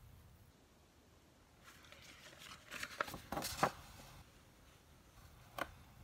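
Sheets of paper rustling and sliding as a paper pad and printed instruction sheets are handled, with a few crisp crackles of paper about three seconds in and one more near the end.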